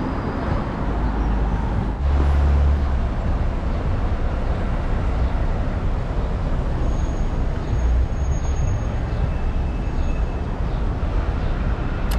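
Downtown street traffic: a steady rumble and hiss of passing vehicles, with a louder low rumble for under a second about two seconds in.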